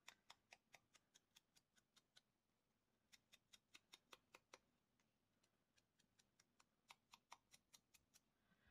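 Finger ink dauber dabbing ink onto the edges of a paper sentiment label: faint quick ticks, about five a second, with short pauses about two and five seconds in.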